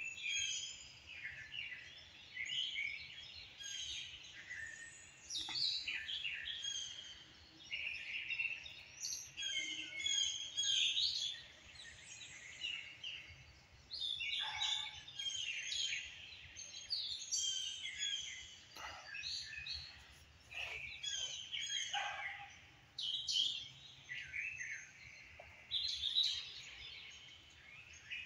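Birds chirping and calling, with many short overlapping calls and trills following one another without a break.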